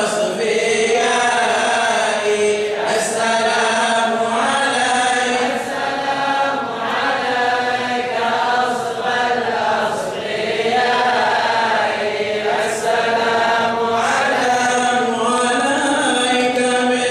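Men's voices chanting a mawlid hymn in praise of the Prophet, a continuous melodic chant without instruments.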